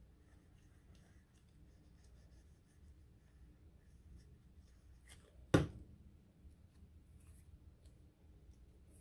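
Paper and craft materials being handled: faint rustles and small ticks, with one sharp tap or knock about five and a half seconds in.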